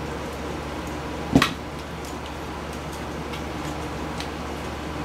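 Circuit boards and small parts of a disassembled video camera being handled: a few faint ticks and one sharp knock about a second and a half in, over a steady low hum.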